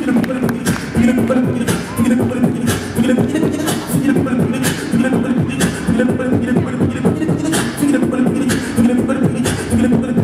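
Beatboxing into a handheld microphone, amplified: a steady beat with a sharp snare-like hit about once a second over a low bass line.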